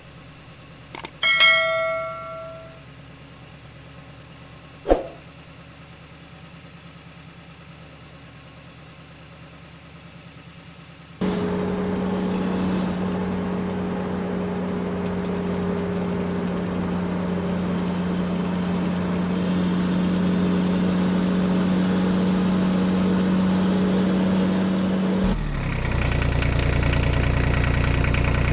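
A couple of mouse clicks and a bell-like notification ding at the start, from a subscribe-button animation. From about 11 seconds a steady engine idling sound begins abruptly. Near the end it switches suddenly to a lower, pulsing engine idle.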